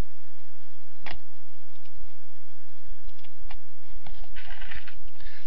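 Computer mouse clicking: one sharp click about a second in, then a few fainter clicks and small handling noises later on.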